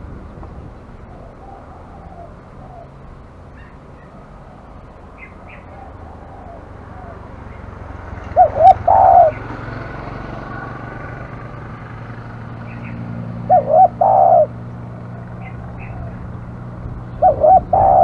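Spotted dove cooing three times, about four to five seconds apart and starting about eight seconds in; each call is two short notes followed by a longer rolling note. Small birds chirp faintly in the background.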